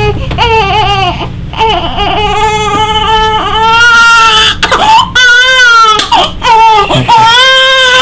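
A one-day-old newborn girl crying hard in a string of wailing cries, some short and several drawn out for about a second, with brief gasps between them. It is distressed crying that the chiropractor puts down to the cold, unfamiliar room rather than to the adjustment.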